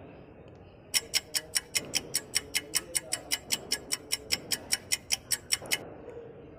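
Quiz countdown-timer sound effect: rapid, even clock-like ticks, about five a second, starting about a second in and stopping near the end.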